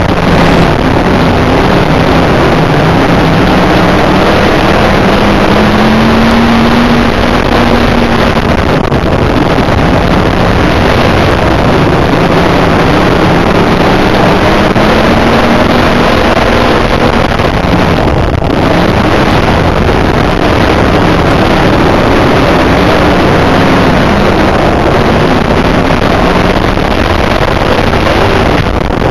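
IMCA dirt modified's V8 engine at racing speed, heard from inside the car very loud and harsh, with wind noise on the microphone. The engine pitch rises and falls every several seconds, with brief dips twice.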